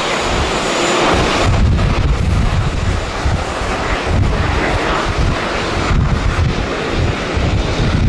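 Bombardier Global 6000 business jet's twin turbofans on take-off and climb-out, a steady jet noise. Strong wind buffets the microphone with an uneven low rumble.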